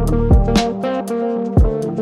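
Background music: guitar and bass over a steady drum beat.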